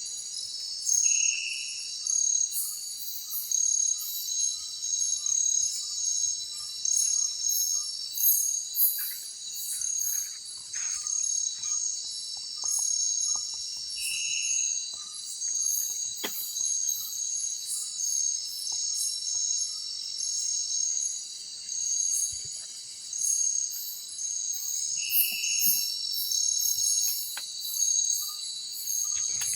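Night chorus of crickets and other insects in tropical forest: steady high trills overlaid with rapid pulsing calls. A short call repeats about every eleven seconds, and a run of soft, evenly spaced notes sounds in the first several seconds.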